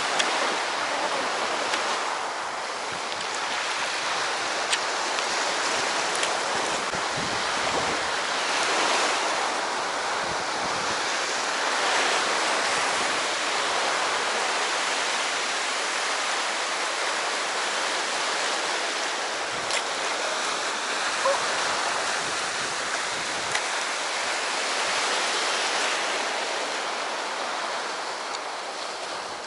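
Sea surf washing onto the shore, a steady rush that swells and eases every few seconds, with a few faint sharp clicks.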